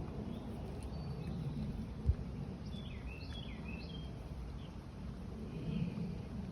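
Outdoor ambience: a steady low rush, a brief thump about two seconds in, and a quick cluster of bird chirps near the middle.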